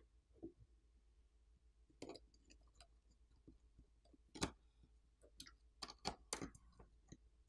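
Faint, scattered clicks and taps of small phone parts being handled by fingers as an iPhone 15 Pro's flex cables are worked loose from its logic board. The loudest tap comes about four and a half seconds in, and a quick cluster follows near the end.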